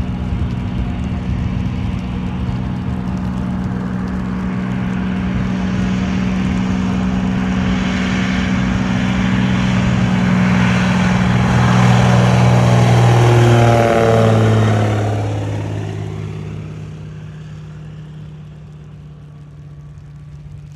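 Radial engine of a floatplane at full take-off power, passing close by. The steady engine note grows louder, drops sharply in pitch as the plane goes past about two-thirds of the way in, then fades into the distance.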